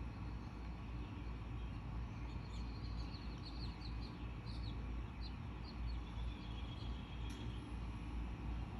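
A bird chirping in a quick run of short high chirps from about two seconds in to about six seconds in, over a steady low rumble of outdoor background noise, with a single sharp click near the end.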